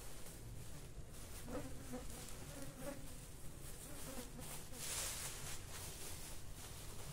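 An insect buzzing, its pitch wavering, from about a second and a half in until about four and a half seconds. A clear plastic bag crinkles as it is lifted and opened, loudest about five seconds in.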